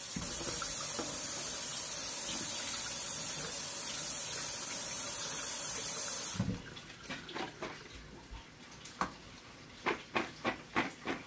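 Kitchen tap running steadily as fresh okra is rinsed under it, shut off about six seconds in. Then a run of short knocks as the wet okra is handled.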